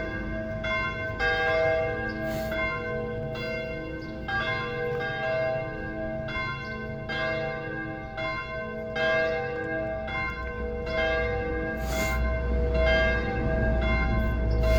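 Church bells ringing, struck in quick succession at about two strokes a second, with several pitches whose tones ring on and overlap. A low rumble rises under the bells near the end.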